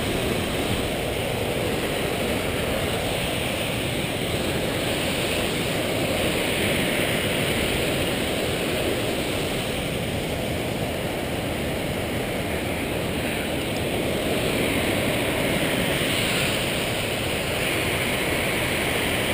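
Steady rush of a creek cascading over rocks: an even wash of water noise without breaks.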